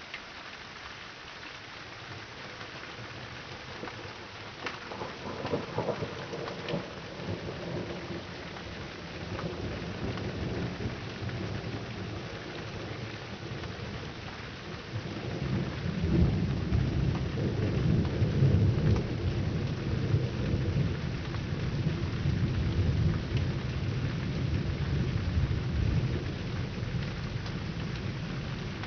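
Thunder over steady rain: a crackling peal about five seconds in, then a long, heavy low rumble from about sixteen seconds in that slowly eases off.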